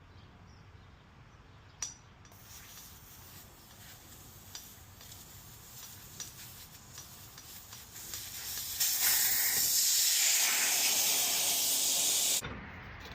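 Compressed air hissing from an air hose, faint at first and then loud and steady for about three and a half seconds before cutting off suddenly, as the new motorcycle tire is aired up.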